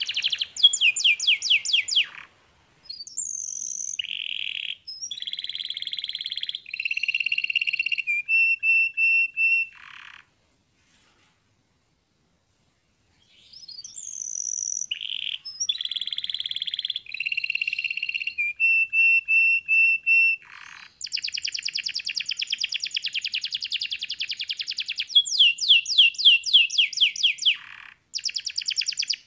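Yellow domestic canary singing: phrases of rapid repeated trills and held whistled notes, broken by a silent pause of about three seconds near the middle before the song resumes.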